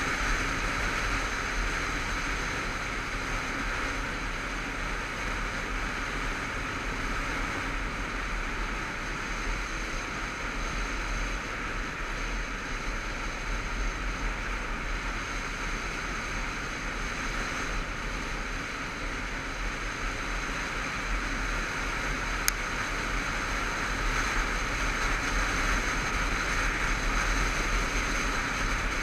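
Motorcycle cruising at a steady speed on an open road: a constant rush of wind over the microphone, with a low rumble underneath. A single sharp click comes about three quarters of the way through.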